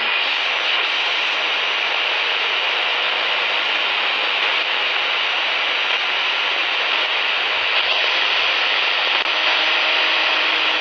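Grundig Yacht Boy 215 portable multiband radio giving out a steady hiss of static, tuned off-station between broadcasts. A faint steady tone comes in near the end.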